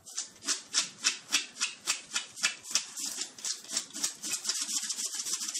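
A dog's front paws scratching rapidly at a rug, digging on command: a rhythmic run of dry scratches, about three strokes a second at first and quicker in the second half.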